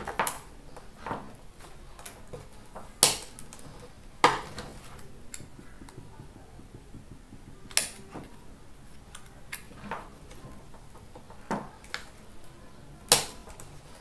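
Sharp clicks and crackles of a stiff strip of stator slot-insulation paper being folded and creased by hand: a handful of separate snaps, loudest about three seconds in and near the end.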